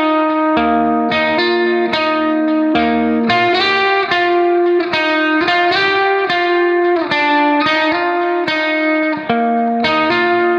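Background music: a plucked guitar melody with a bass line, continuous and steady.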